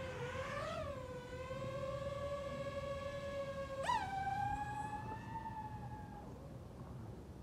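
DJI FPV drone's motors and propellers whining as it lifts off, the pitch rising and then holding steady. About four seconds in the throttle is punched: the whine jumps sharply higher, sinks slightly and fades as the drone climbs away.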